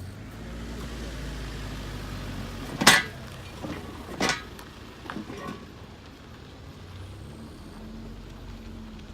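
Two sharp knocks about a second and a half apart, the first the louder, followed by a few lighter clatters, over a low steady rumble.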